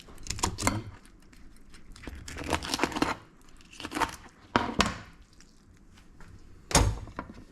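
A knife scraping and cutting through raw fish in short separate rasping strokes as the fish is cleaned, with a heavier knock near the end.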